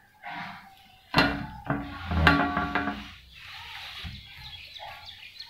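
English cocker spaniel puppies yapping and squealing as they play-fight: a cluster of sharp, high-pitched yaps about a second in lasting about two seconds, then fainter scuffling and whines.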